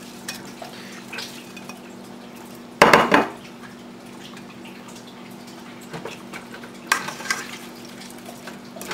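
Fried chicken pieces tipped from a plate into a pot of sauce, with one loud clatter of crockery against the pot about three seconds in. Near the end a spatula scrapes and clicks against the pot as the chicken is stirred into the sauce, over a steady low hum.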